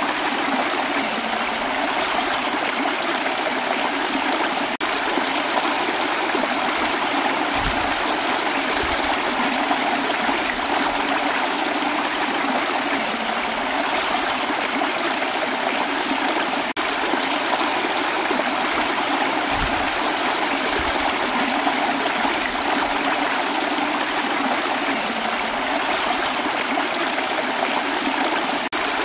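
Shallow rocky stream flowing over stones in a small cascade: a steady, unbroken splashing of water.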